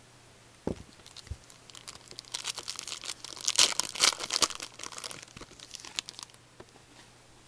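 Wrapper of a hockey trading card pack being torn open and crinkled by hand: a dense crackle lasting about four seconds, loudest in the middle. Two soft knocks come before it.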